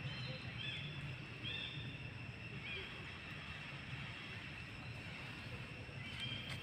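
Several short, high chirping calls, a few seconds apart, over a steady low rumble of outdoor background noise.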